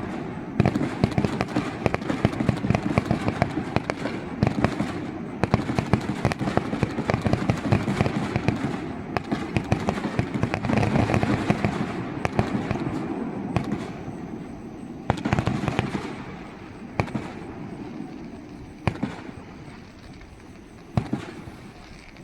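Fireworks display: a dense, rapid barrage of bangs and crackle that swells about halfway through, then thins out to a few scattered bangs near the end as the show winds down.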